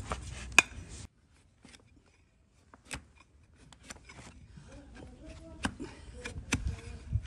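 A flat, cleaver-like hoof knife shaving and cutting a donkey's hoof: short, crisp cutting strokes through hard horn. The strokes come thick in the first second, stop for a second or so, then return as scattered single cuts.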